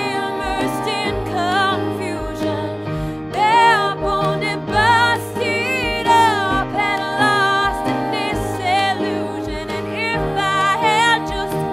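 Background music: a song with a singing voice over a steady beat and sustained instrumental chords.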